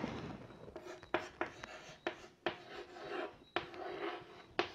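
Chalk writing on a chalkboard: a run of short taps and brief scratchy strokes, starting about a second in.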